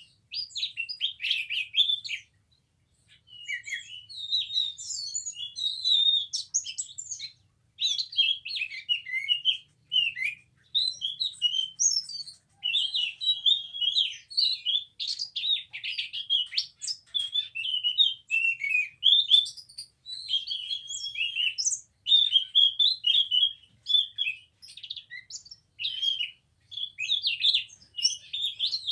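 Scaly thrush (anis macan) singing a long run of varied, quick warbling and whistled phrases, broken by short pauses of a second or so.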